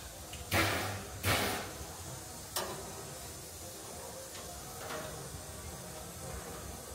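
Two short hissing bursts of steam from a standing steam locomotive, each fading over about half a second, then a sharp metallic clank and a couple of fainter knocks.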